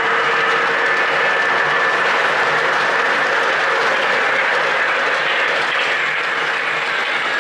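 O gauge model train running on the layout: a steady rushing rumble of wheels rolling on the track, with a faint steady whine that fades about halfway through.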